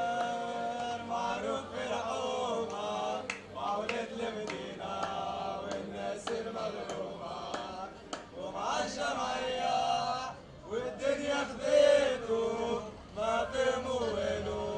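A group of male football supporters singing a chant together, with some hand claps.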